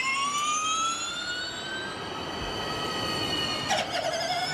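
Logo sting sound effect: a synthetic whine with several overtones glides upward and levels off, then fades. Near the end a second, lower whine cuts in with a short crackle and climbs slowly.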